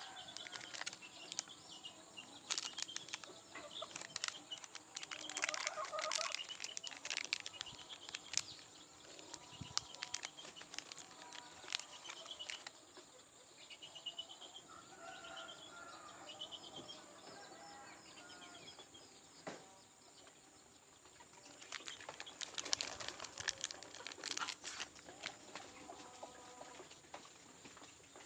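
Chicks moving about in a pen: repeated wing flapping and scratching clicks, with short high peeps now and then.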